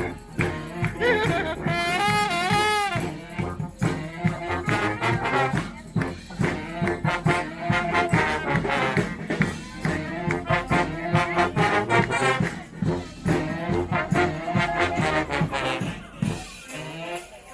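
A street brass band playing live: horns over a steady drum beat, with one horn holding a wavering note about two seconds in. The playing thins out near the end.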